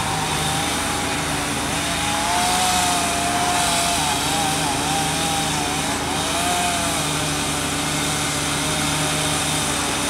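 Motors running steadily: a low engine drone with a higher whine that wavers in pitch, while cars pass on the street.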